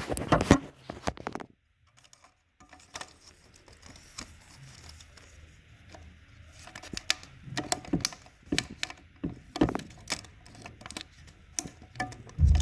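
Scattered clicks, taps and light knocks of hands handling a 35mm film magazine and its film while threading it. A cluster of loud knocks opens, then it goes nearly silent for about a second, before irregular ticks and taps resume.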